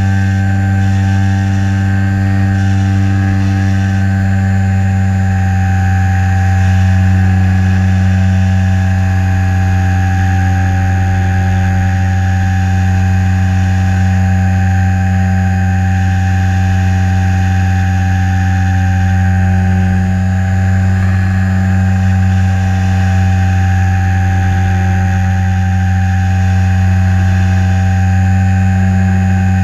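HobbyZone Super Cub LP's electric motor and propeller running at a steady throttle in flight: a constant hum with higher, level tones over it, heard through a camera mounted on the plane.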